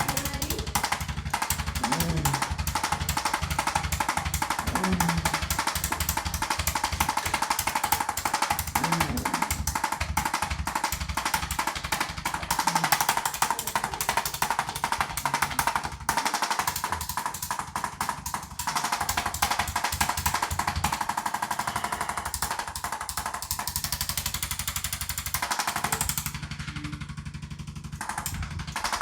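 Electric percussion massager hammering rapidly and continuously, with a steady motor whine and a few short breaks.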